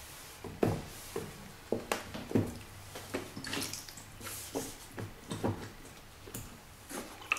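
Irregular knocks, clatters and wet rubbing as an 8000-grit whetstone on its base is handled, wiped with a cloth and set down flat on the table.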